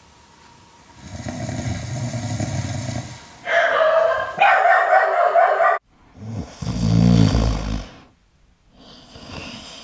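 A man's loud, exaggerated snores, several in a row, broken by abrupt cuts.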